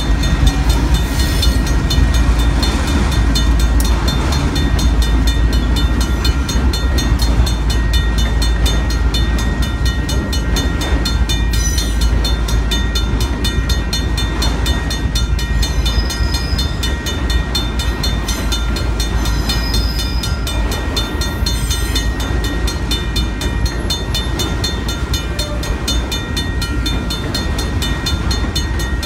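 Freight train passing: BNSF diesel locomotives, then a long string of autorack cars, with a steady low rumble and regular clicking of wheels over the rails. A level-crossing bell rings steadily alongside.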